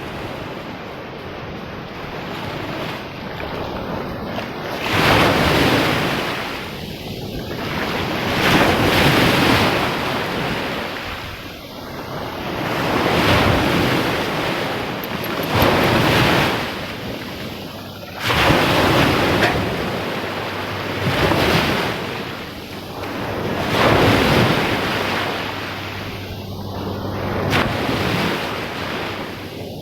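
Surf breaking on a beach, the wash swelling and falling back every few seconds, with wind on the microphone.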